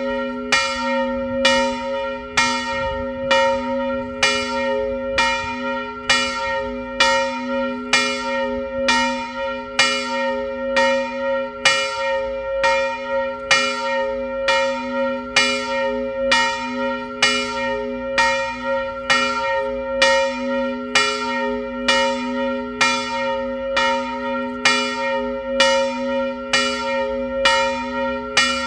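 A roughly 330 kg bronze church bell cast by Karol Schwabe of Biała in the 1920s, tuned to B-flat, rung by its clapper at an even pace, a little over one strike a second. Each strike blends into the hum of the ones before.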